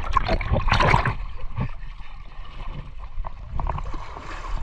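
Water splashing and sloshing in a shallow irrigation canal, heaviest in the first second, then quieter, irregular slops and trickling.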